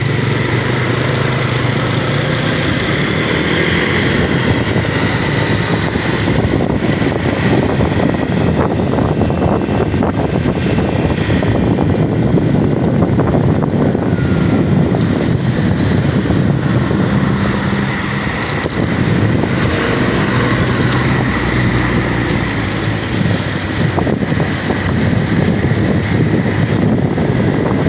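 Steady noise of busy road traffic, cars and motorcycles running past, with wind blowing on the microphone.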